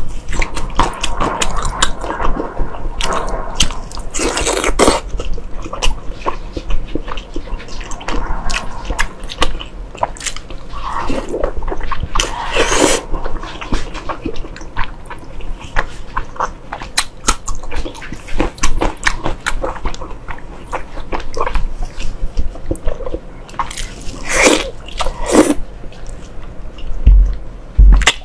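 Close-miked chewing and wet mouth sounds of a person eating braised pork belly: constant small clicks and smacks, with a few louder bites and slurps.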